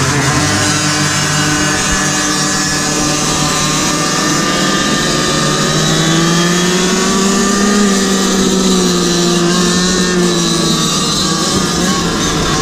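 Small gas engines of GoPed GoQuad racing quads running together, heard from onboard one quad. About six seconds in, the nearest engine's pitch climbs as it accelerates, then holds and eases off slightly.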